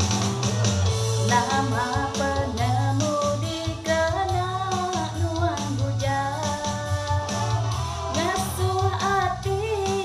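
A woman singing into a handheld microphone over a karaoke backing track with guitar and a steady bass beat; her voice comes in about a second in.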